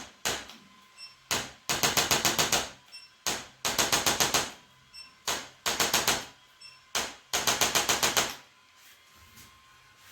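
Rapid runs of sharp taps, about eight a second for about a second at a time, repeating every couple of seconds with single taps between; they stop about eight seconds in.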